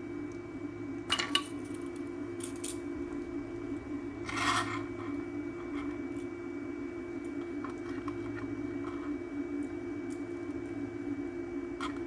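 Light metallic clicks and a short scrape of soldering tools being handled at a workbench, over a steady low hum. A few sharp clicks come in the first three seconds and a brief hiss about halfway.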